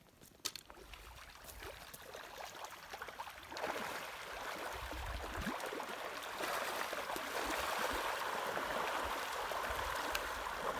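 Shallow river water rushing and splashing, churned up by a crowd of pink salmon thrashing in the shallows. It comes in suddenly about three and a half seconds in and grows a little louder; before that only a faint quiet with a couple of clicks.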